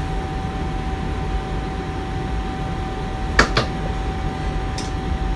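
Bombardier TRAXX F160 MS electric locomotive (NS class 186) humming steadily: a constant whine over a low rumble, with two quick clicks about three and a half seconds in.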